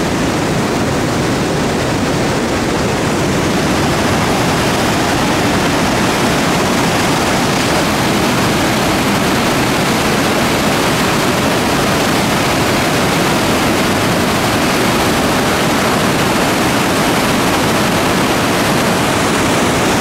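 Merced River rapids rushing just above the drop of Nevada Fall: a loud, steady, unbroken sound of white water.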